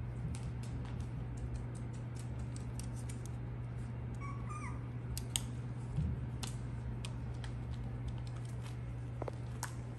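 Six-week-old miniature schnauzer puppies moving about: many small scattered clicks and scratches of paws and claws, with one short high puppy squeak about four seconds in, over a steady low hum.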